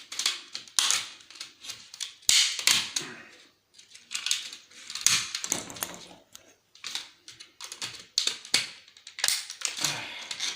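Irregular clicking, clacking and scraping of small plastic and metal electronic parts being handled and taken apart by hand.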